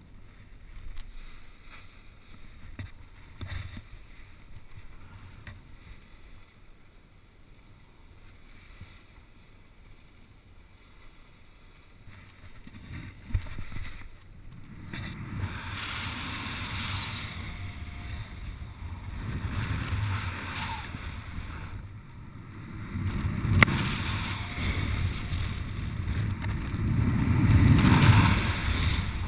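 Air rushing over the camera microphone under a paraglider wing: faint at first, then louder in gusty surges from about halfway through.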